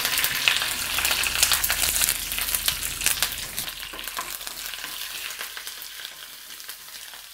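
Curry leaves, dals and dried red chillies sizzling and crackling in hot oil in a small non-stick pan, stirred with a wooden spatula that scrapes and taps the pan. The sizzle grows quieter over the second half.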